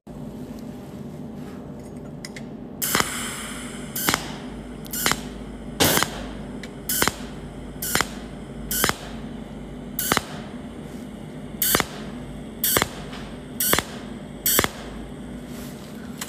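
Cold welding machine firing its pulsed arc from the tungsten electrode, spot by spot: a sharp crack roughly once a second, about a dozen in all, starting about three seconds in, over a steady hum.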